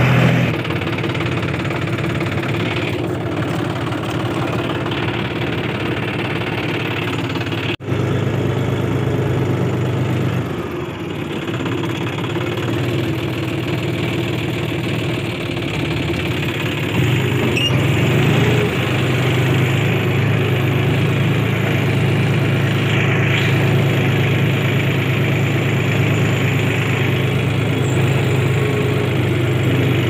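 John Deere 5105 tractor's three-cylinder diesel engine running steadily while pulling a two-bottom mouldboard plough through loose soil. It cuts out for an instant about eight seconds in and gets louder about seventeen seconds in.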